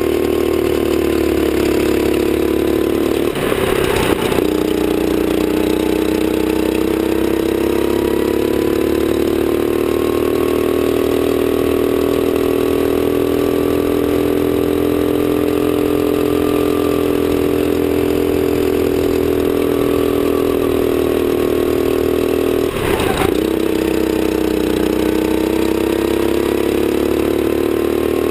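Sodi rental kart engine heard close from onboard, droning steadily at racing speed. Its pitch drops and climbs slowly as the kart slows for corners and accelerates out. A brief rough burst of noise comes about four seconds in and again about 23 seconds in.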